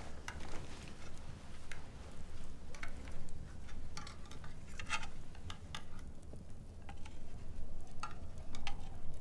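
Cutlery clinking and scraping against a plate as food is stirred and picked at: a scattering of light clicks and scrapes, a cluster about four to five seconds in and two more near the end, over a low steady rumble.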